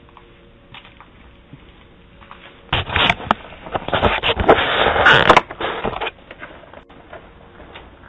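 Loud scraping and rustling right against a security camera's microphone for about three seconds, starting near the middle, as the camera is covered over.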